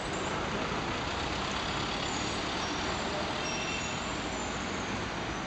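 Steady street traffic noise, with a van driving past close by in the first part.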